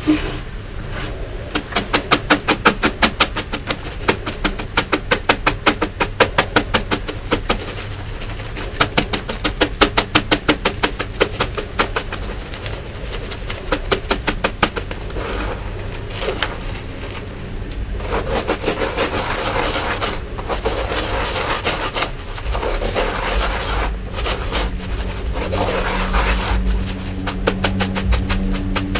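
A stainless-steel mesh strainer of crumbly yellow powder being sifted: for about the first half, a fast, even tapping and rattling of the sieve, several knocks a second. After that comes a steadier gritty rubbing and rustling as the crumbs are worked through the mesh.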